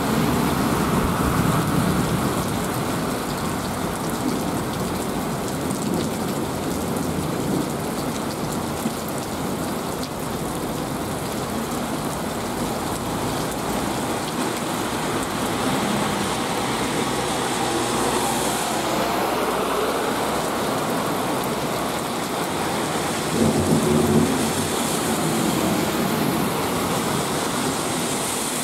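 Heavy downpour hissing steadily onto a wet street, with cars swishing through standing water as they pass now and then. A brief louder swell comes near the end.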